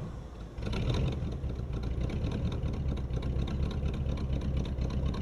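A 1966 Ford F-100's V8 engine idling steadily with an even low pulse, coming up louder a little under a second in.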